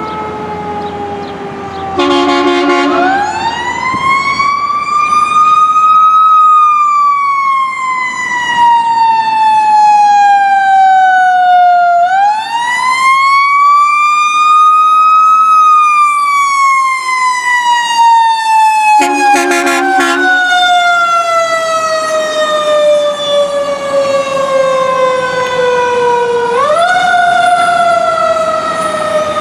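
Fire engine siren wailing, its pitch rising and then slowly falling in long sweeps, three times. Short blasts of the truck's air horn cut in early on and again about two-thirds of the way through.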